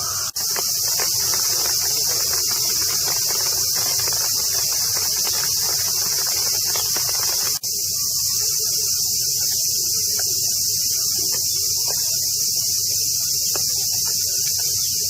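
A chorus of cicadas droning steadily and loudly, with a high, even buzz. It cuts out for an instant twice.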